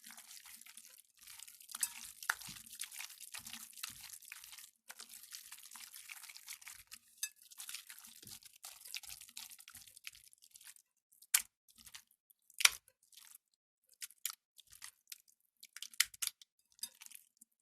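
Gelatin jelly slime with glitter and sequins being squeezed and worked by hand, squelching: a dense wet crackle for most of the first half, then separate sharp wet pops and smacks.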